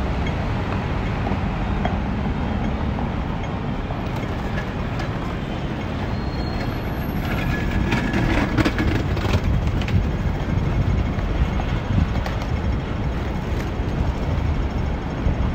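City street traffic: a steady rumble of passing vehicles, with a louder stretch of rattling clicks a little past the middle.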